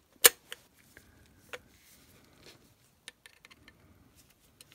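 Handling noise of a metal lightsaber hilt and a small screwdriver: one sharp click about a quarter second in, a few smaller clicks, then scattered faint ticks as the screwdriver is set to a small screw in the hilt.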